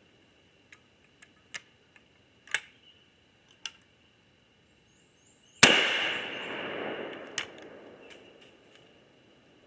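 Several small clicks and taps of gun handling, then a single loud gunshot a little past halfway that echoes and fades away over a couple of seconds, followed by one more sharp click.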